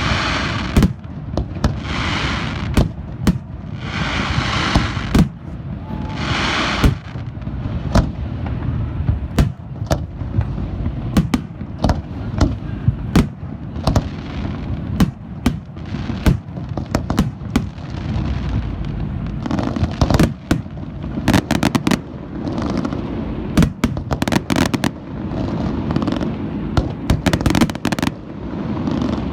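Fireworks display with aerial shells going off one after another as sharp bangs. There are several hissing bursts in the first seven seconds, and the bangs come thick and fast in the last third.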